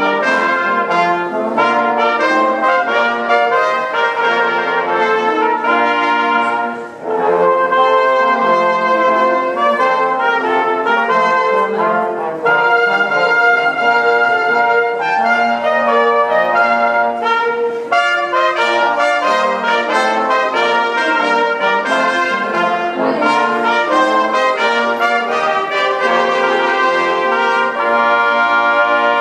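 Small brass ensemble led by trumpets playing a piece of held chords and moving lines, with a brief break between phrases about seven seconds in.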